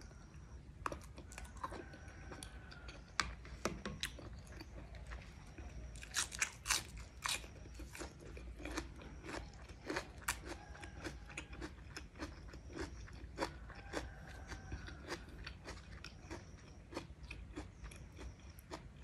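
Close-up eating sounds: a person biting and chewing a sausage, with many short, wet, sharp clicks from the mouth. The clicks are densest and loudest about six to seven seconds in.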